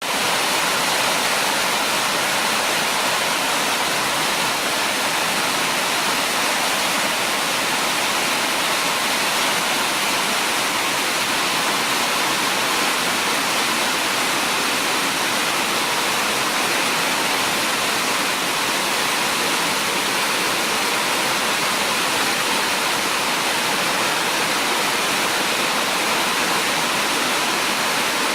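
Heavy rain falling steadily, a dense even hiss that neither rises nor falls.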